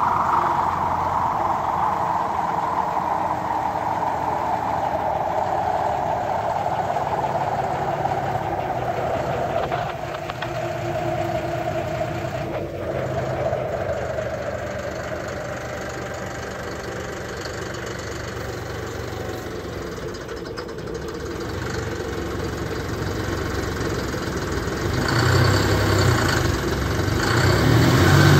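John Deere 5045E tractor's three-cylinder diesel engine running steadily as the tractor drives with a rotary cutter on the three-point hitch. Over the first dozen seconds a hissing whine slowly falls in pitch and fades. The engine grows louder near the end as the tractor comes close.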